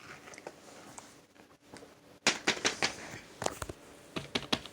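Small plastic fidget toys being handled: a quick run of about ten sharp clicks and taps starting about halfway through.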